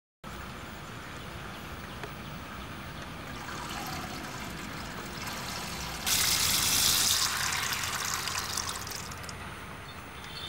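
Sorghum grains and then water poured into a clay pot: a loud hiss starts suddenly about six seconds in and fades away over about three seconds.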